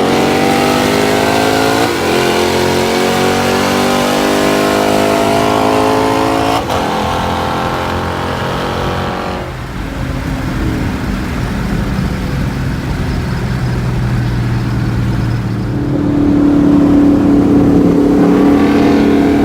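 A car engine accelerating hard through the gears, its pitch climbing and dropping back at two upshifts. It then eases off to a lower rumble, and a steadier, louder engine drone comes in near the end.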